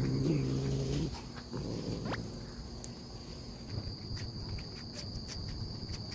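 Street cat growling low over a plate of food, ending about a second in. Then softer eating sounds with a few sharp clicks, over a faint steady high tone.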